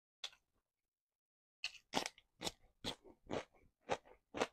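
Close-miked mouth sounds of someone chewing crunchy food: one short crunch just after the start, then steady crunchy chewing at about two chews a second from under two seconds in.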